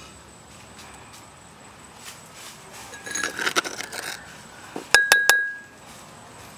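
Metal spoon clinking against ceramic bowls: a run of small clinks about three seconds in, then three sharp taps with a short ring about five seconds in.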